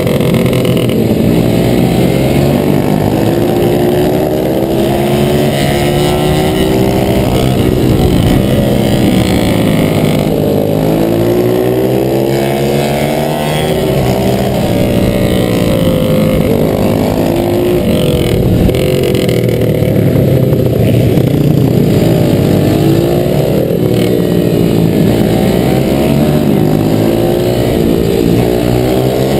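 Onboard sound of a pit bike's YX140 single-cylinder four-stroke engine at race pace. It revs hard up through the gears and backs off into the corners, again and again.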